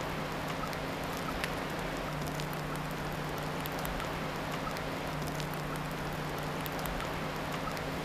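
Steady rush of water with scattered drips and light ticks, over a low steady hum.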